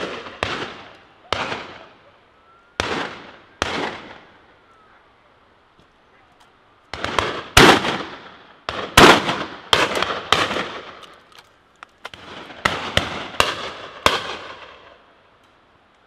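Shotguns firing at driven birds: a string of single shots, some louder and closer, some farther off, each leaving a fading echo. After a few shots there is a pause of about three seconds, then a fast volley of shots from several guns, and a last cluster near the end.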